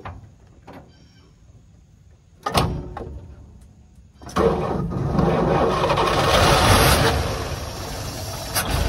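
1954 Chevrolet truck's straight-six engine being started after sitting for years: a short burst of cranking about two and a half seconds in, then it catches about four seconds in and keeps running.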